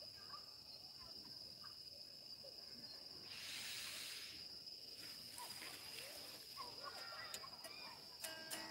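Faint, steady, high-pitched chirring of insects in the surrounding vegetation, with a brief rush of hiss a little before the middle. Music starts right at the end.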